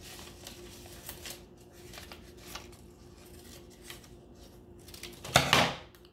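Scissors snipping through paper in short, irregular cuts as a small shape is cut out, followed about five seconds in by a much louder, brief rustle of the paper being handled.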